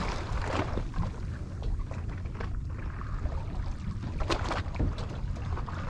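Wind rumbling on the microphone over water lapping against the hull of a drifting boat, with two short knocks a little past four seconds in.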